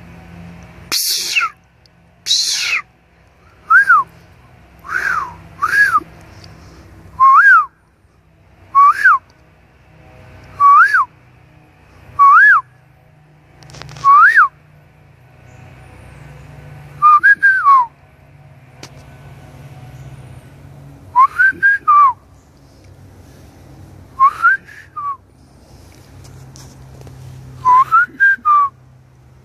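Wild turkey perched in a tree giving short, sharp whistled calls that rise and fall in pitch, about one every one to two seconds, sometimes in quick pairs.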